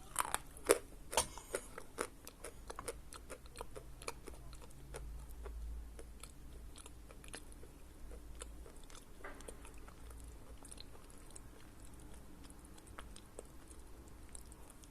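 A person biting and chewing a lump of dense, dry Khrapovsky edible chalk: a few sharp crunches in the first two seconds, then softer crunching chews that thin out toward the end.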